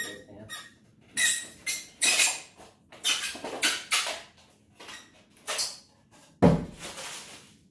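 Styrofoam packing pieces squeaking and scraping in a run of short rubs as they are worked off a scooter, then a sudden thump about six and a half seconds in.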